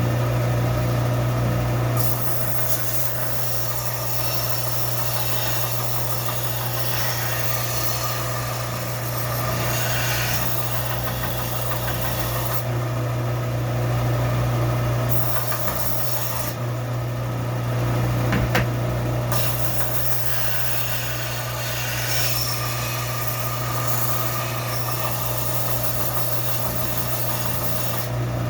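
Belt sander running with a steady motor hum while a rusty adze blade is ground against the belt, a continuous rasping that eases off briefly a few times as the blade is lifted and set back on.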